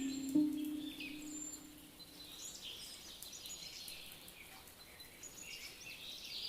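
Small birds chirping and twittering in short, high calls, with a low held musical note fading out during the first couple of seconds.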